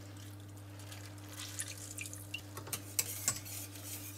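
Water dripping and trickling from soaked gelatin sheets as they are squeezed out by hand, with a few light sharp ticks, over a steady low hum.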